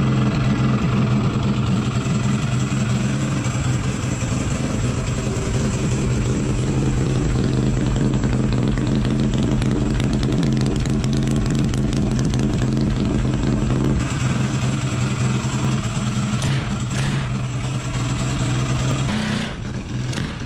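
Minibike engine running at a steady speed through its exhaust, its note changing and dipping briefly near the end.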